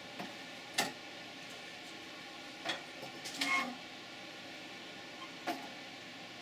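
A few sharp clicks and knocks of tools and a circuit board being handled on a workbench, one of them a brief ringing metallic clink, over a steady electrical hum.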